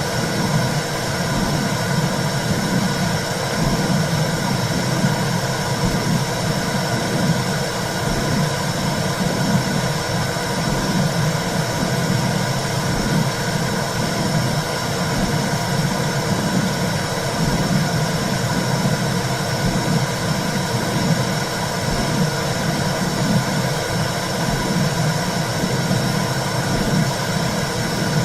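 Womb sound for soothing a baby: a steady low whooshing rumble with a hiss above it, unbroken throughout.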